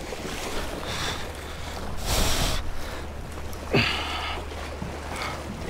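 Wind rumbling on the microphone over water washing against jetty rocks, with a brief hissing gust about two seconds in. Near four seconds comes a short grunt that falls in pitch.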